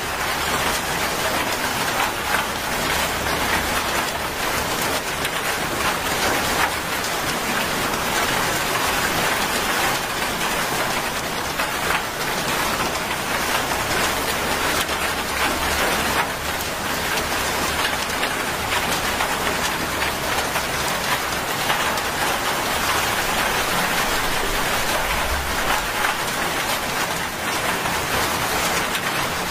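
Heavy rain pouring steadily onto a wet asphalt road and roadside plants, an even, dense hiss of drops.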